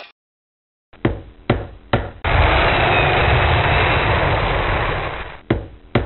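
Construction work sounds: three sharp knocks about half a second apart, then about three seconds of loud steady machine noise with a heavy low rumble, then two more knocks. The sound begins after about a second of silence and cuts off near the end.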